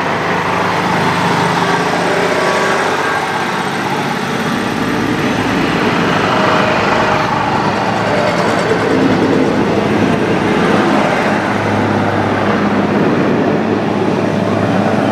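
Diesel railcar train passing close by: its underfloor diesel engines running and steel wheels rolling on the rails in a steady, loud noise. A low engine hum grows stronger in the last few seconds as the end car goes by.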